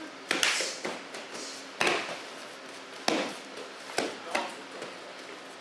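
Sharp slaps and thuds of a karate knife-defence drill: blocks and strikes landing on the attacker and the uniforms snapping. There are about five hits at uneven intervals, the first about a quarter second in.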